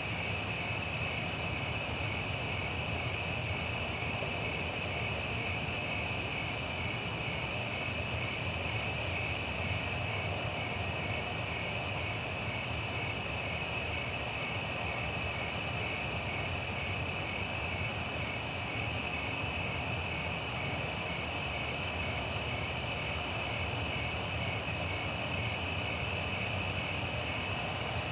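Night ambience: a steady, dense chorus of crickets chirping at a high pitch, over a low rumble of distant traffic and a soft wash of wind through trees.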